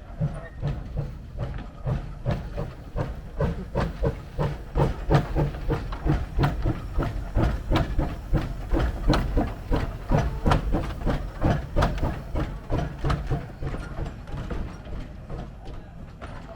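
Vulcan-built 0-4-0T tank steam locomotive under way, its exhaust chuffing in a regular beat of about two to three chuffs a second. The chuffs grow louder through the middle and ease off near the end.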